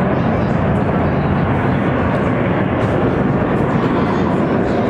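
Boeing 727-200's three rear-mounted Pratt & Whitney JT8D turbofans at takeoff thrust as the jet climbs away: loud, steady, low rumbling jet noise.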